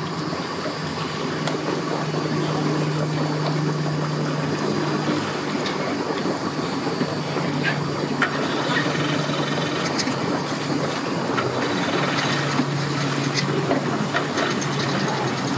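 Yamaha jet boat's engine idling at the dock, a steady low drone with a few faint ticks over it.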